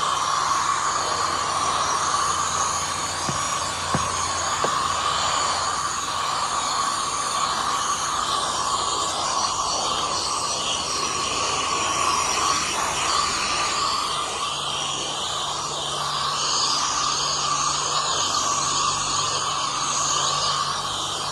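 High-pressure water spray from a self-service car wash wand hitting a car: a steady hiss of spray over the washer's drone.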